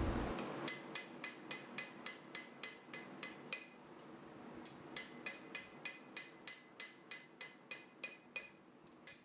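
Hammer blows on a W1 steel flat bar being forged, drawing it out thinner. The blows come steadily at about three a second, each one ringing. There are two runs of strikes with a short pause between them, and a single last blow near the end.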